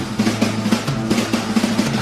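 Rock music with a fast drum fill of rapid snare and bass drum hits.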